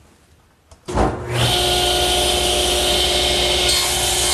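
Table saw switched on about a second in and running steadily with a loud, even whine, cutting a 3/4-inch MDO plywood panel pushed through on a panel-cutting sled.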